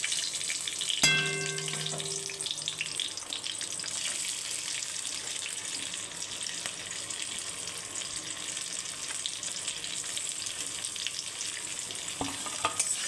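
Fried rice sizzling as it fries in a pan, with the small clicks and scrapes of stirring. About a second in comes a sharp clang that rings for about a second, and there is another knock near the end.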